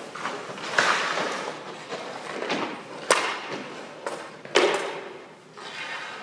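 Ice-hockey goalie's skate blades scraping the ice and leg pads thudding as the goalie moves and drops down, with three sharp knocks, each trailed by a scraping hiss.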